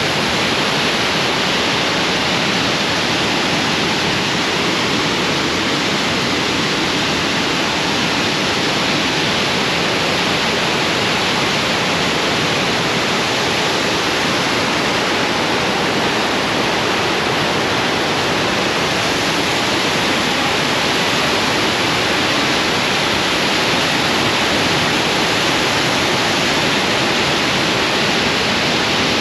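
Waterfall's rushing water: a loud, steady rush that holds without a break.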